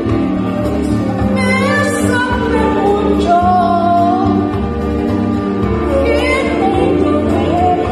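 A woman singing into a handheld microphone over musical accompaniment with a steady bass line, holding long wavering notes.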